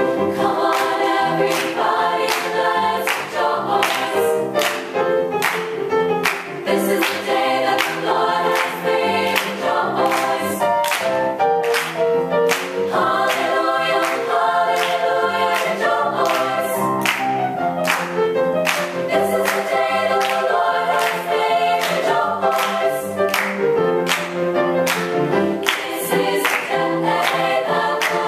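Girls' choir singing a song in several parts, over a sharp, steady beat of about two strokes a second.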